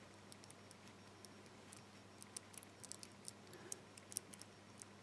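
Faint, irregular clicking of a cheap four-wheel suitcase combination lock's number wheels being turned by hand and checked for play, the clicks coming more often in the second half.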